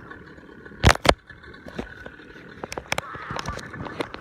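Sharp knocks and clicks from handling, the two loudest close together about a second in and lighter ones scattered after, over a steady low hiss.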